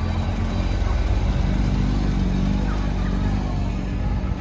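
Porsche 911's flat-six engine running with a low, steady note as the car rolls slowly past at close range.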